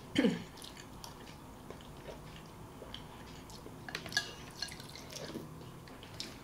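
Two people eating soup: spoons clinking against the bowls, slurping and chewing, in short scattered sounds with a small cluster about four seconds in.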